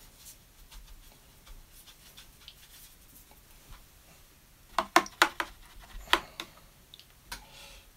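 Paintbrush and palette handling: faint small taps, then a quick run of about six sharp clicks some five seconds in, followed by a short scraping sound.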